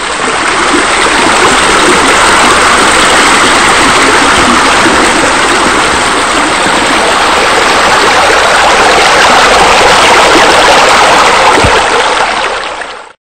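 Steady rushing of falling water from a pool's vanishing-edge spillover, tapering off and stopping just before the end.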